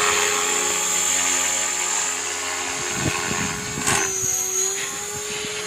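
Electric Align T-Rex 500 RC helicopter running at steady head speed, with a high motor whine over the rotor hum. Irregular crackling sets in about three seconds in, and about four seconds in a sharp crack is followed by a brief dip in the rotor pitch before it recovers.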